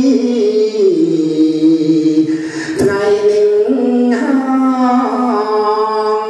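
A single voice intoning a Buddhist chant in long held notes that slowly rise and fall, breaking off briefly near the middle.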